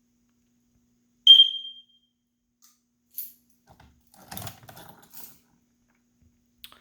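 Fire alarm system giving one short, high beep about a second in, just after it has been reset, followed by a few faint clicks and knocks of handling.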